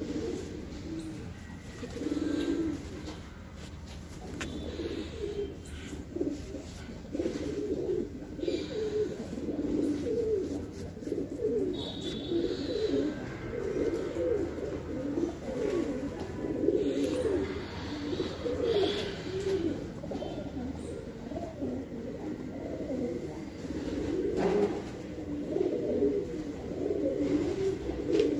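Several domestic pigeons cooing continuously, their low coos overlapping one another.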